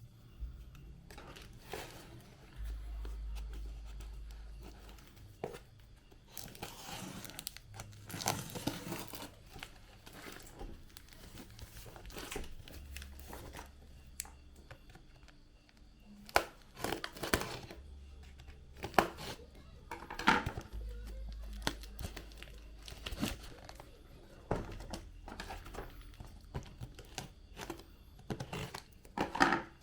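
Packaging being handled: plastic and paper crinkling and rustling, with irregular clicks and knocks as the box and its contents are moved about.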